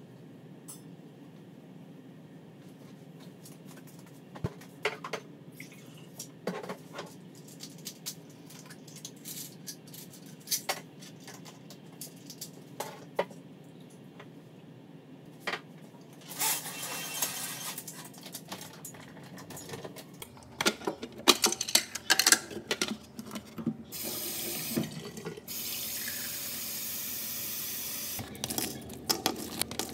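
Scattered clicks and knocks of things being handled, with a burst of louder clatter, then a kitchen tap runs water into a pot in two steady runs near the end.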